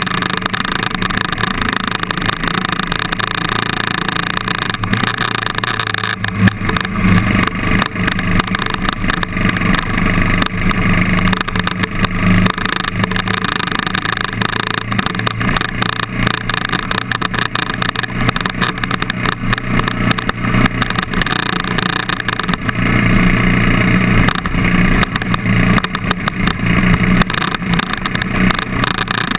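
KTM trail bike's engine running as it rides along a dirt forest track, the engine note growing stronger about six seconds in and again near the end.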